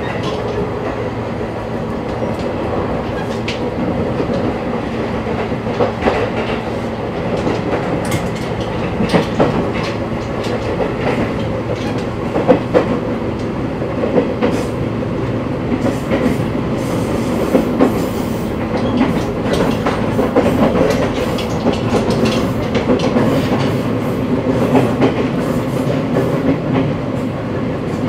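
Running noise inside a JR 185 series electric train, heard from the vestibule of motor car MoHa 184-208: a steady rumble and hum of the motors and wheels, with the clack of rail joints. The clacks come more often in the second half.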